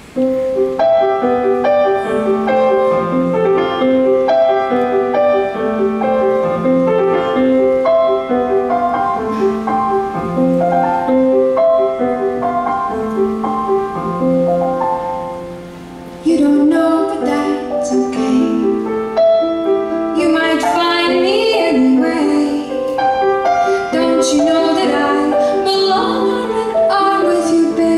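Steinway grand piano played alone for about fifteen seconds, then a woman's singing voice enters over the piano, backed by a live concert piano accompaniment.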